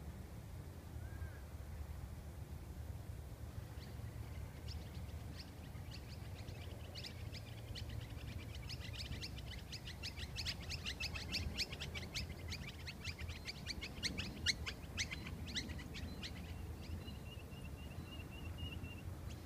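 A bird calling in a long run of rapid, sharp, high repeated notes, about five a second, building over a few seconds and fading after about ten, then a short steady high trill near the end. A low rumble runs underneath throughout.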